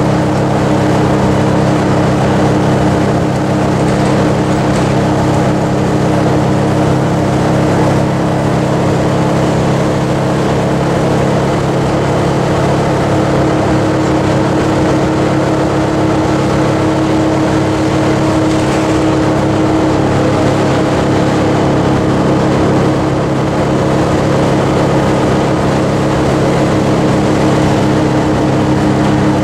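Detroit Diesel 6V92TA two-stroke V6 diesel running steadily while an MCI Classic transit bus is under way, heard from inside the passenger cabin, with road noise underneath. The engine note holds a steady pitch, with a slight shift about two-thirds of the way through.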